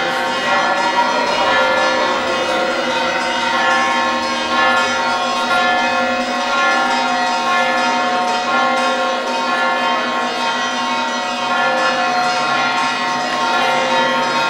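Festive procession music with bells ringing, many held tones sounding together and shifting every few seconds.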